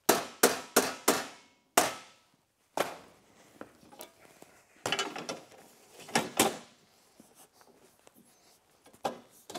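Hammer blows on the bent aluminium edge of a Polaris RMK snowmobile's tunnel, knocking it straight so the bolt holes line up: about six sharp, ringing strikes in the first three seconds, then a few scattered knocks and metal clatter.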